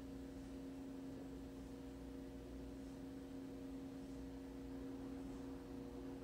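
Faint steady electrical hum of the powered-up Samsung LED TV with its backlights lit, holding two low tones without change.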